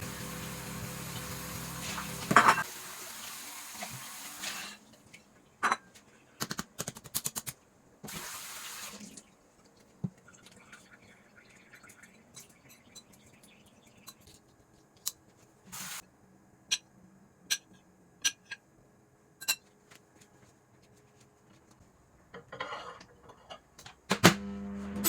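Kitchen tap running into a sink, shut off about five seconds in and run again briefly a few seconds later, followed by scattered light clicks and knocks.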